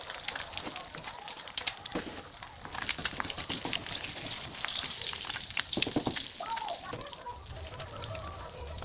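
Food frying in hot oil: a steady sizzle with many small crackles and pops.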